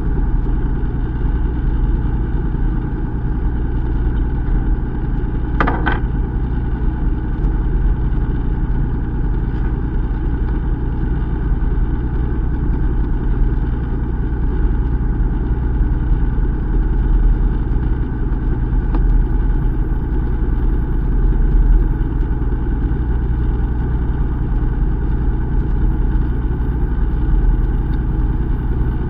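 Fishing boat engine running with a steady, even hum and a strong low rumble. A brief sharp sound cuts through about six seconds in.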